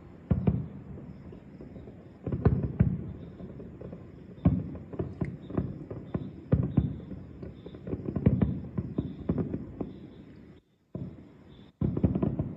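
Aerial fireworks shells bursting: a string of bangs and cracks, often in quick clusters, every second or two, each trailing off. The sound drops out briefly twice near the end.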